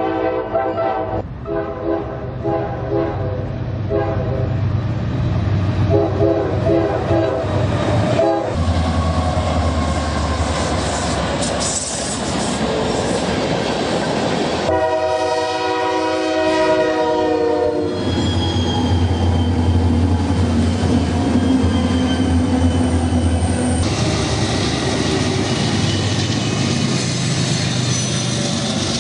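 Train horn sounding a string of short blasts, then a second, longer blast about halfway through, as a train passes with a steady low rumble of engine and wheels on the rails.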